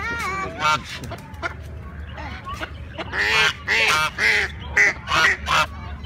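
Domestic geese honking, with a quick run of about six loud honks in the second half.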